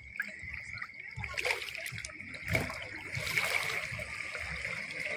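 Shallow sea water splashing and sloshing as a person wades through it, pushing a jet ski along, with a few louder splashes. A steady faint high hum sits underneath.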